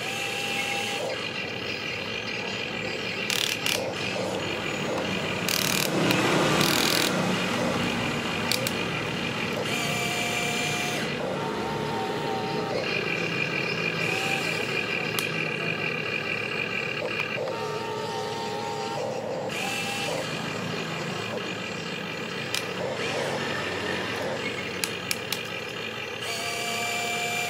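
Huina RC excavator's small electric motors whining as the arm swings and digs in sand, the pitch stepping up and down as different movements start and stop. There is a louder noisy rush about six seconds in.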